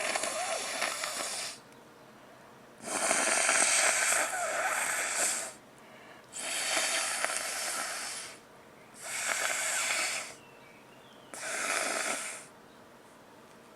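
A person with a cold blowing their nose five times in a row. Each blow is a long, noisy rush of air lasting one to two and a half seconds, with short pauses between.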